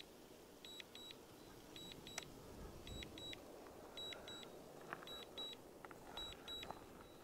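DJI Mini 2 remote controller sounding its return-to-home alert: faint, high-pitched double beeps repeating about once a second while the drone flies itself home.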